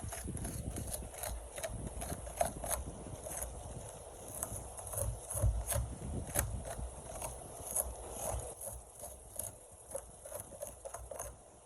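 Hands working on a dirty plastic NERF blaster: irregular clicks, taps and scrapes of the plastic shell and parts, several a second.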